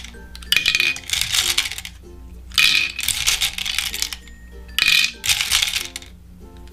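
M&M candies clattering and rattling as they are scooped with a spoon and tipped into a toy teacup, three times about two seconds apart. Background music plays underneath.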